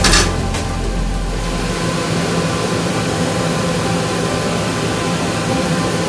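Steady mechanical hum of a container ship's galley, the drone of ship machinery and ventilation with several constant tones. There is a short clatter right at the start, and a deep rumble drops away about two seconds in.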